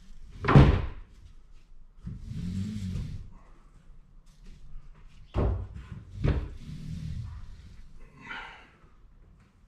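Knocks and clunks as a hard plastic sit-in kayak hung from ceiling straps is pulled on and shifted, with its strap being adjusted. The loudest knock comes about half a second in, and two more come close together about five and a half seconds in. Two drawn-out low sounds fall in between.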